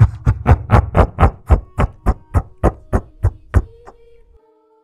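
Transition music: a rhythmic run of evenly spaced percussive hits, about four a second, fading away, with a few held tones lingering near the end.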